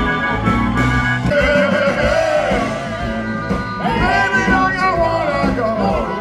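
Blues-rock band music, with a gliding sung or lead melody over guitar and rhythm backing.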